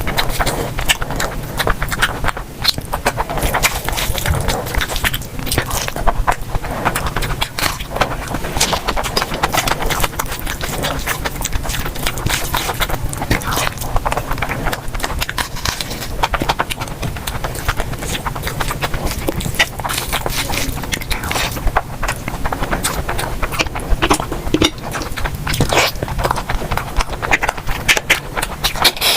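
Close-miked eating: chewing and mouth sounds, a dense, irregular stream of small clicks and smacks.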